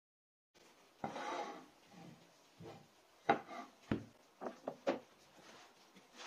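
Wooden boards being handled on a saw table: a short scraping slide of wood on the tabletop, then several sharp knocks as the boards are set down and butted against the fence.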